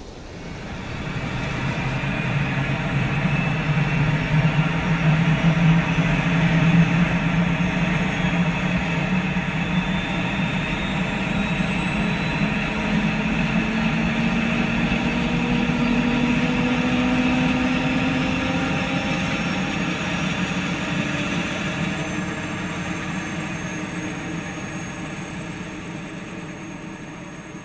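Helicopter running, a steady mechanical engine and rotor sound with a tone that rises slowly in pitch through the middle, fading out near the end.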